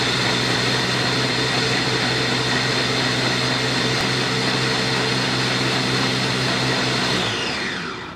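Electric mini food chopper running steadily at full speed as it purées a mixture, then switched off about seven seconds in, its motor whining down in pitch as it spins to a stop.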